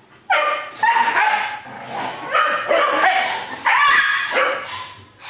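Phu Quoc dogs barking and yelping in a rapid series of short, sharp calls while two of them tussle mouth to mouth.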